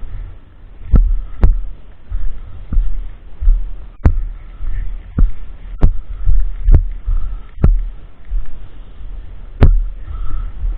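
A series of irregularly spaced sharp knocks, each with a heavy low thump, over a steady low rumble.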